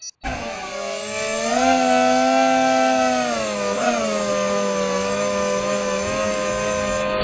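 A Tinyhawk 2 FPV micro drone's small electric motors and propellers spin up suddenly into a steady buzzing whine. The pitch rises briefly twice as the throttle changes.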